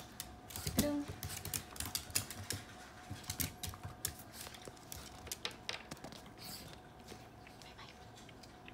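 Chihuahua's claws clicking and tapping rapidly on a wooden floor as it spins and prances excitedly, the taps thinning out over the last few seconds.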